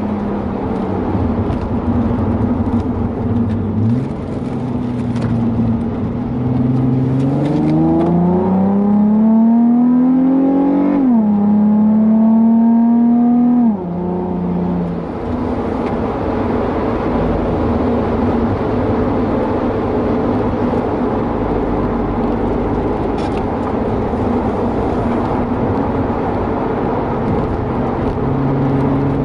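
Nissan 350Z's 3.5-litre V6 with an aftermarket catback exhaust, heard from inside the cabin at track speed. The engine note climbs as the car accelerates, drops sharply about eleven seconds in at an upshift, dips when the throttle is lifted about fourteen seconds in, then holds a fairly steady note through a long corner.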